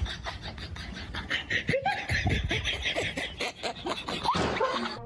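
People laughing in quick repeated bursts.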